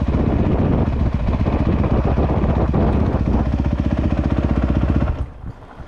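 Engine running steadily with a fast, even beat, then shut off about five seconds in.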